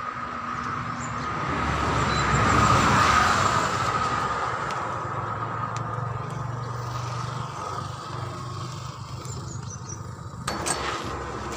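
A road vehicle going by, swelling to its loudest about three seconds in and then slowly fading, over a steady high-pitched hum. A few sharp clicks come near the end.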